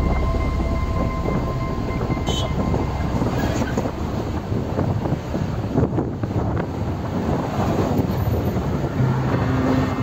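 Steady road and wind noise from a moving vehicle, heard from on board.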